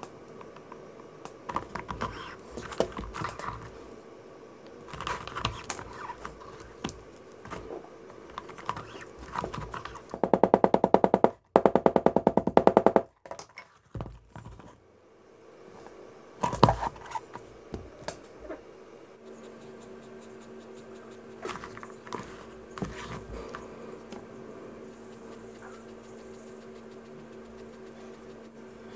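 Scattered clicks, taps and knocks of tools being handled and used at a leather-working bench, with a loud rapid rattling burst of about three seconds near the middle.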